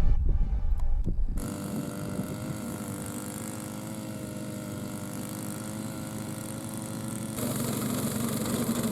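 Background music cuts off about a second and a half in, giving way to a steady engine running, with an abrupt change in its sound near the end.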